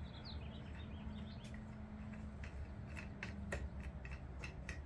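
Light squeaks and clicks as a wing nut is turned down by hand onto a lawn tractor engine's air filter cover, clamping the filter. The squeaks come about a second in, with scattered ticks after, over a steady low hum.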